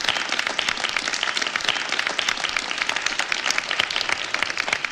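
Audience applauding: many hands clapping at once, steadily.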